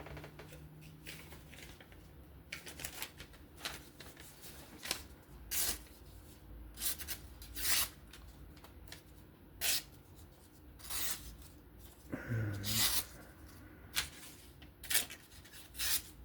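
Knife blade making repeated short slicing cuts, about fifteen crisp strokes at uneven spacing, as its edge is tested. A brief low hum sounds about twelve seconds in.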